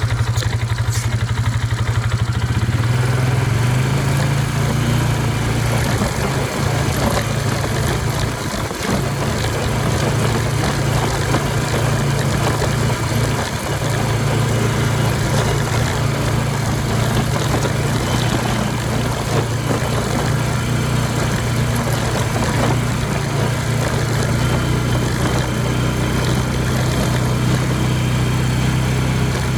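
ATV engine running steadily, easing off briefly twice.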